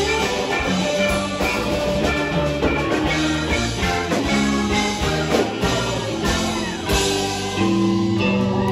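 Live rock band playing an instrumental passage, with electric guitar over a drum kit.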